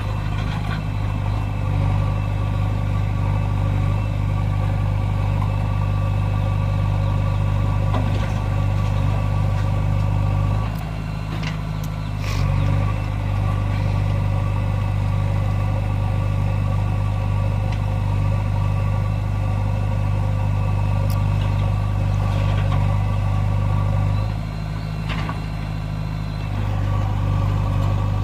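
JCB 3DX backhoe loader's diesel engine running steadily at working revs. It eases off twice, for about two seconds each time, and there are a few faint knocks.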